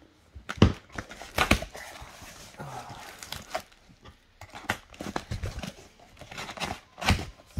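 Cardboard shipping box being opened by hand: packing tape tearing and the flaps being folded back, with rustling and crinkling of bubble wrap. A few sharp, loud snaps of cardboard stand out, about half a second in, around a second and a half in, and near the end.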